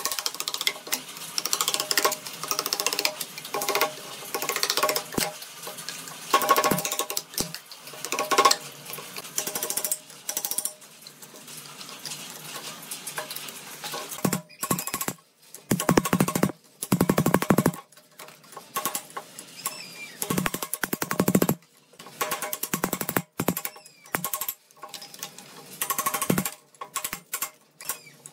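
Thin sheet mold being pried and torn away from a cured epoxy resin casting with a screwdriver: irregular bursts of scraping, creaking and tearing, with rattling of the loosened sheet.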